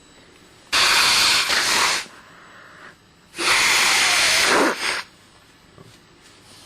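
A person blowing their nose hard twice, each blow a loud hissing blast of air lasting about a second and a half.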